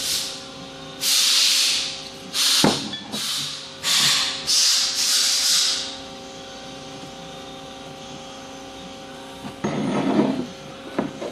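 All-purpose white grease being applied to the bushing bore of a lower wishbone: a run of short hissing, rubbing bursts with a light knock among them, then a lull.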